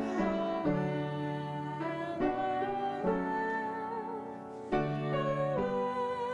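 A piano playing a hymn in block chords, each chord held for about a second before the next.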